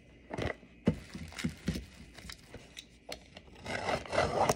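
A few knocks and taps as a cardboard trading-card box is handled, then near the end about a second of a box cutter scraping as it cuts the box open.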